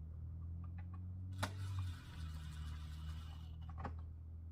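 Sharp plastic clicks and about two seconds of scraping as dashboard trim parts are pushed and fitted into place, over a steady low hum.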